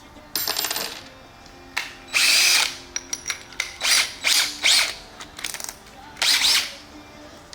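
Power drill run in several short bursts, some spinning up in pitch, as it bores holes into the speaker box.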